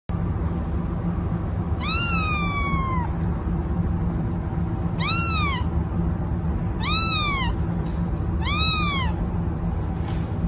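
Kitten meowing four times, each call rising then falling in pitch. The first meow is long and the next three are shorter, over a steady low background hum.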